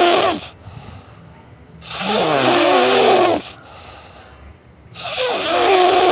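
Snoring: long rattling snores about three seconds apart, with much quieter gaps between. One snore is dying away at the start, a second comes about two seconds in, and a third near the end.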